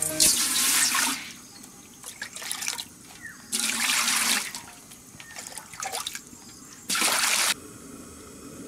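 Water poured from a plastic mug into a large aluminium cooking pot that already holds water, splashing in three pours with small trickles and drips between them.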